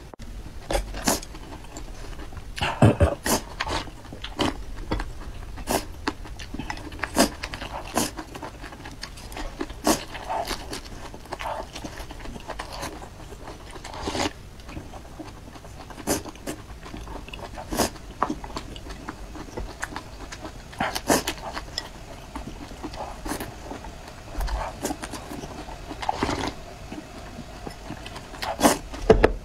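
Close-miked eating sounds: slurping and sharp lip-smacking clicks, irregular, about one or two a second, as spicy chili-oil broth and fish balls are eaten with chopsticks and sipped from the bowl.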